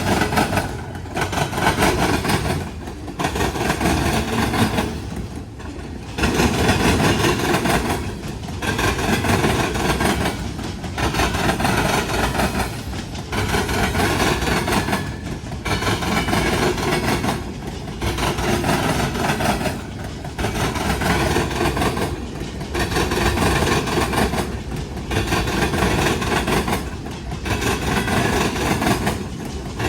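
Freight train cars rolling past over a railroad diamond crossing, the wheels clattering. The sound rises and dips about every two and a half seconds as each car goes by.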